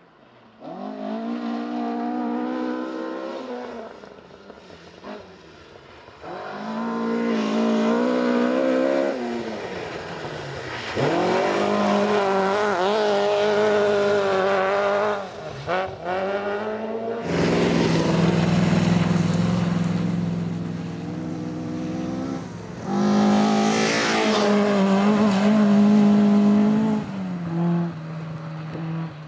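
Historic rally cars driven flat out on a special stage, about five in turn. Each engine revs hard, its pitch climbing and dropping with the gear changes as the car goes past.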